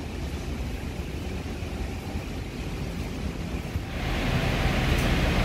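Steady low rumble of airport apron noise. About four seconds in it turns louder and hissier, heard from inside an apron passenger bus.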